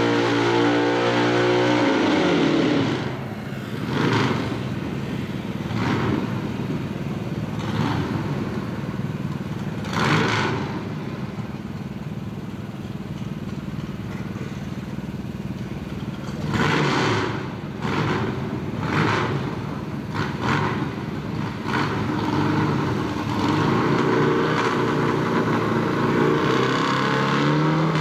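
V-twin drag-racing motorcycle engine in a D&G chassis: revs falling away after a burnout, then running at low revs with about nine short throttle blips while staging, and revs climbing again near the end as it is held up for the launch.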